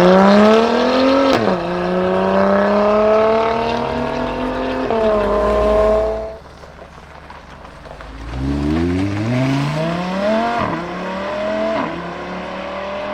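Supercar engine accelerating hard, the revs climbing and dropping at two quick upshifts before the sound falls away. A few seconds later a second acceleration comes in, revs rising with more quick upshifts.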